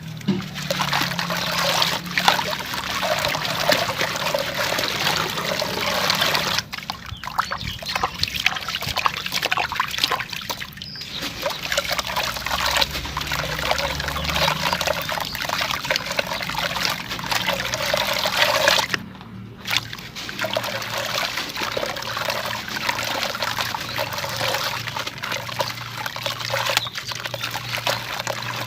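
Dried sand-cement shapes soaking and crumbling in water, a dense crackling, trickling fizz with short lulls twice along the way.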